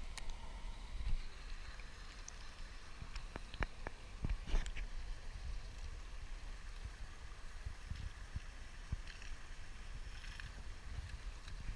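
Pool water lapping and sloshing gently against a camera held at the surface, with a low rumble and a few short clicks and knocks.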